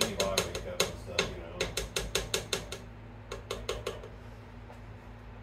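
A metal coil whisk clicking against the sides of a pot as eggs are stirred, in rapid, irregular taps that stop about four seconds in.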